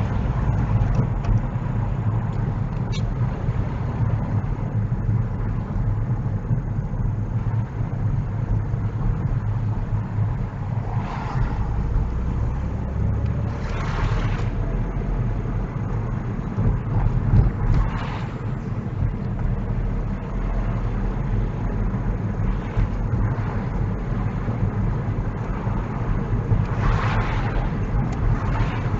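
Car engine and road noise heard from inside the moving car, a steady low hum, with a few brief hissing swells.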